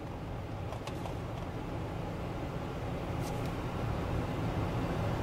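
Steady low road and engine rumble inside a moving car's cabin, growing gradually louder, with a couple of faint ticks.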